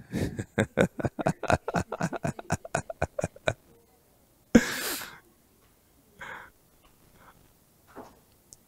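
A man chuckling at his own joke in a quick run of short, clipped bursts for about three and a half seconds, then a single sharp breath about a second later.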